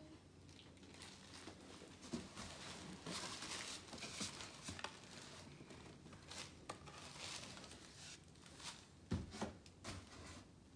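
Faint rustling and scraping of cardboard boxes as a toddler shifts about in one and climbs out, with a few sharper knocks near the end.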